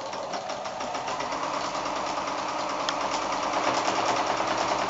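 Domestic sewing machine running steadily, straight-stitching a line of machine quilting through the quilt layers, with a rapid, even needle rhythm.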